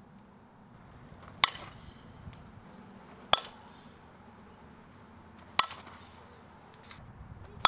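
Softball bat striking pitched softballs: four sharp cracks with a brief ring, about two seconds apart.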